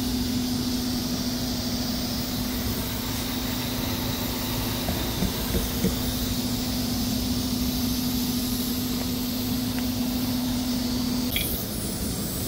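Compressed air hissing through an air hose and chuck into a low semi-truck tire being inflated, over a steady machine hum. The hum stops about eleven seconds in and is followed by a brief sharp hiss.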